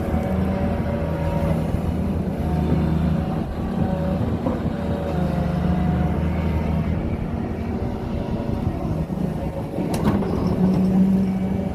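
Doosan excavator's diesel engine running steadily while the machine digs, its note changing several times as the load varies. A single sharp knock about ten seconds in.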